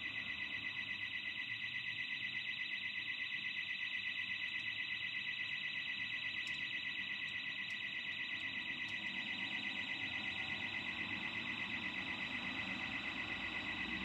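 Burglar alarm sounding without a break: a high, shrill tone that warbles rapidly, about five pulses a second.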